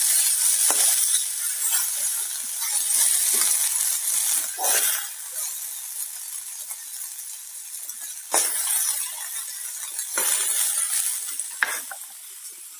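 Vegetables sizzling in a hot kadhai while a steel spatula stirs and scoops them out, with a few sharp scrapes and clinks of the spatula against the pan. The sizzle dies away steadily because the gas has been switched off.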